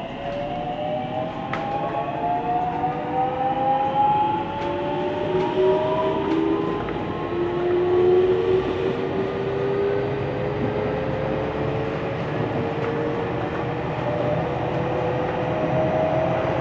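Interior running noise of a JR 313 series electric multiple unit: the traction motors' whine, several tones together, rises slowly in pitch as the train gathers speed, over a steady rumble of wheels on rail.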